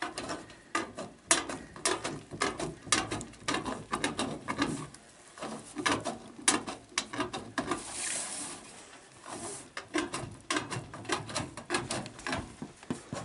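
Hand snips cutting through sheet-metal chimney flashing: a run of crisp snips and clicks, several a second, with a short scraping rasp of the metal about eight seconds in.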